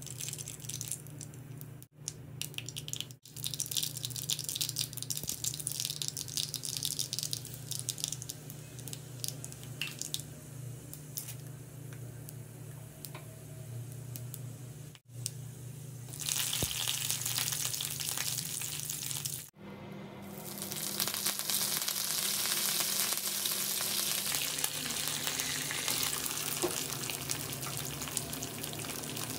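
Hot oil sizzling and crackling in a kadai as mustard seeds and chana dal fry, growing louder and denser later as more ingredients go in. The sound breaks off abruptly a few times.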